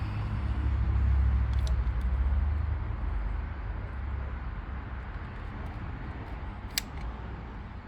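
Low rumble of a passing motor vehicle that swells over the first few seconds and then fades away, with a single sharp click near the end.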